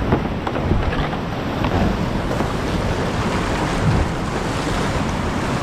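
Rushing whitewater of a steep boulder creek, a steady loud rush with scattered small splashes, and wind buffeting the microphone.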